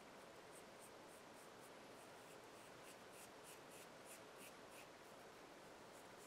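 Near silence with faint scratchy rubbing as fingertips work thinned wood filler into a small 3D-printed plastic ring, about three strokes a second, dying away about five seconds in.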